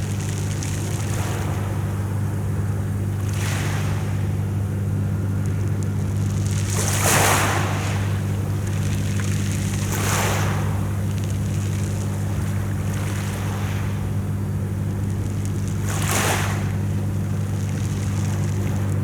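Sea waves breaking and washing onto the shore, a swell of surf every few seconds, over a steady low hum.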